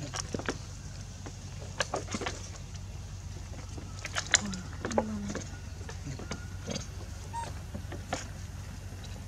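Scattered sharp clicks and knocks, a few close together around two seconds in and again around four to five seconds, from macaques climbing over a motorbike's plastic bodywork, wire front basket and hanging helmet, over a steady low hum.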